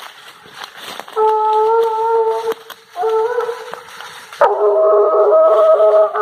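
American-type hunting hounds (cachorro americano) baying in long drawn howls on a hunt: one dog about a second in, again briefly after a short gap, then from about halfway several hounds baying together, loudest near the end. Brush crackles underfoot in the first second.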